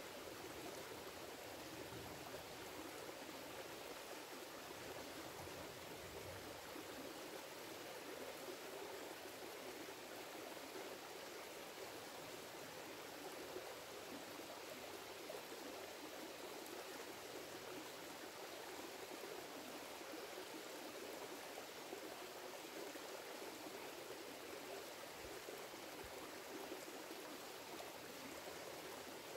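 Shallow creek running over rocks: a steady, faint rush of flowing water.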